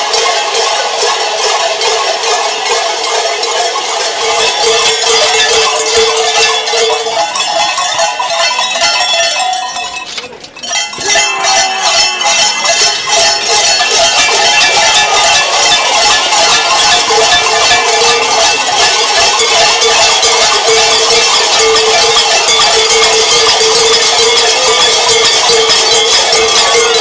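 Dozens of large cowbells strapped to Krampus costumes clanging continuously as the figures move, dying down briefly about ten seconds in before swelling again.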